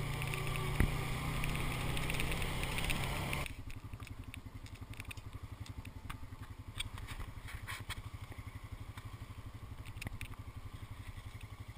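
Quad bike (ATV) engine running during a ride. About three and a half seconds in, the sound cuts abruptly to a quieter, evenly pulsing engine note.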